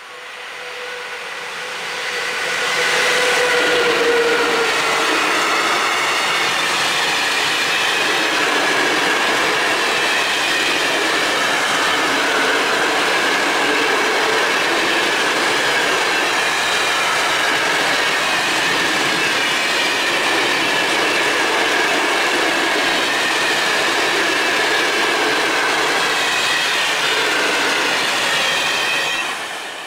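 Freight train hauled by an ET22 electric locomotive passing close by. The sound builds over the first few seconds as the locomotive arrives, then holds as a steady rumble and clatter of open coal wagons rolling past, with wavering squeals from the wheels. It drops away near the end.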